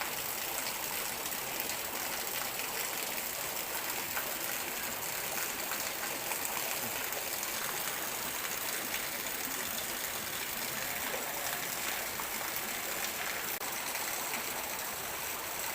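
River water flowing steadily, an even rushing with no breaks.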